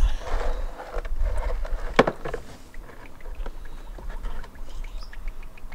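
Old oil pouring and splashing out of a Tuff Torq K46 hydrostatic transaxle into a plastic tub as the unit is tipped to drain. There is a sharp knock about two seconds in, then scattered small ticks.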